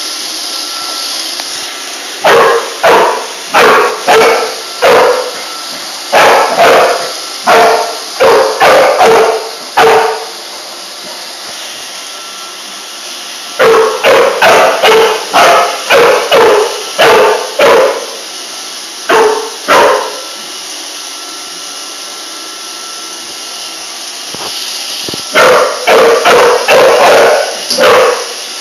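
Pit bull barking in three bouts of rapid, loud barks, over the steady hum of a Roomba robot vacuum running.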